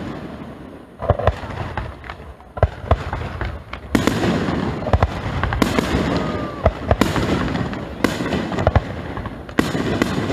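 Aerial firework shells bursting overhead: a string of loud booms, one every second or so, with sharp crackling cracks between them.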